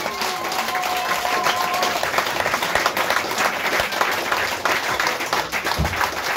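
Audience applauding: many hands clapping at a steady level, without a break.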